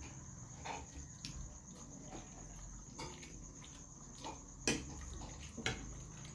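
Close-up eating sounds of biryani being eaten: soft chewing and mouth noises with a few sharp clicks, the loudest about four and a half and five and a half seconds in. A steady high-pitched tone runs under it.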